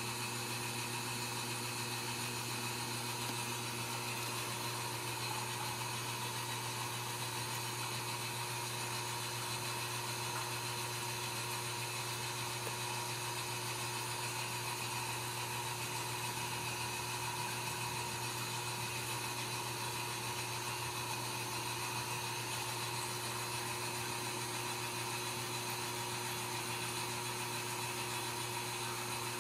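Steady mechanical hum with an even hiss, holding several fixed tones at one level.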